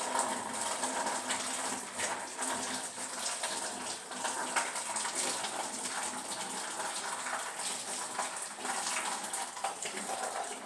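Water running steadily from a tap into a sink while hands are washed under it.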